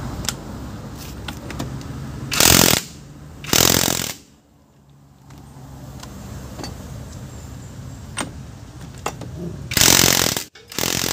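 Cordless impact wrench hammering in four short bursts of about half a second, two a few seconds in and two near the end, on the front hub axle nut of a Suzuki Multicab: the nut is being broken loose to free the CV joint.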